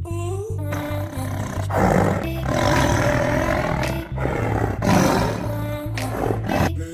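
Tiger roaring over background music with a steady beat: two loud roars, about two and five seconds in.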